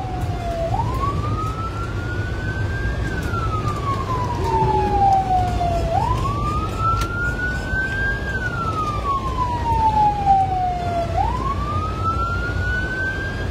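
Rescue van's electronic siren on a slow wail, heard from inside the cab: the tone climbs over about two seconds, then falls over about three, repeating through two and a half cycles. Under it runs the steady low rumble of the moving van.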